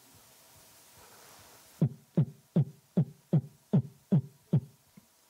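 A fast heartbeat: eight even, deep thumps, about two and a half a second, starting nearly two seconds in after a short quiet stretch.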